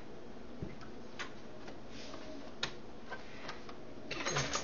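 A few light, isolated clicks, then a short run of rapid clicking and rustling near the end, as small parts are handled.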